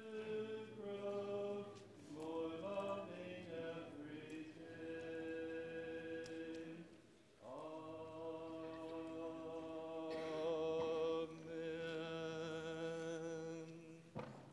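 Congregation singing a hymn a cappella, with long held notes and no instruments. The last phrase is held and the singing stops suddenly just before the end.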